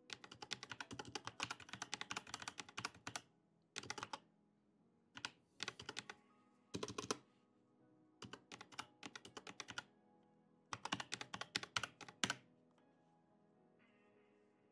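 Computer keyboard typing in bursts of rapid keystrokes as numbers are entered, with pauses between the bursts. The typing stops about 12 seconds in, leaving soft background music.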